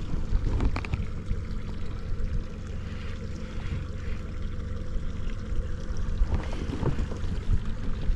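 Low, steady rumble of a boat motor running, with wind buffeting the microphone and a few light knocks.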